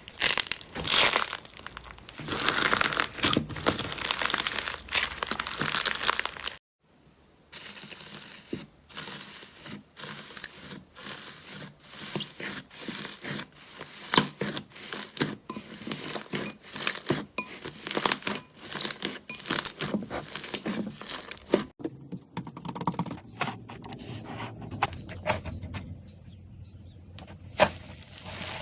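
Slime being squeezed and pressed by hand, making a dense run of wet crackles, pops and crinkles. There is a brief gap about seven seconds in, and the crackling is quieter and sparser near the end.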